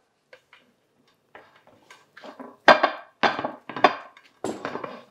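Hands knocking and patting an upside-down metal bundt mold sitting on a ceramic plate, to loosen the set gelatin inside so it drops out. After a quiet start comes a run of sharp knocks about half a second apart.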